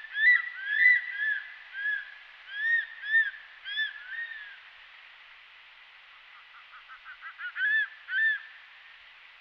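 Andaman crested serpent eagle calling: a series of about a dozen ringing notes, each rising then falling in pitch, over the first four seconds. After a pause, a quick run of short notes builds into two louder calls near the end.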